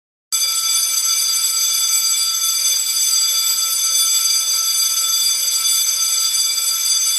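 Electric school bell ringing continuously, played by an automatic bell system through its loudspeakers; it starts abruptly about a third of a second in and holds a steady, unchanging ring.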